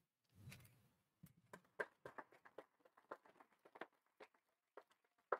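Faint, scattered clapping from a few people: irregular single claps, about three a second.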